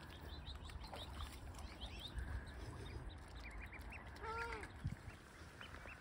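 Waterbirds calling: scattered short, high peeps, then one arched call with a rising-and-falling pitch about four and a half seconds in.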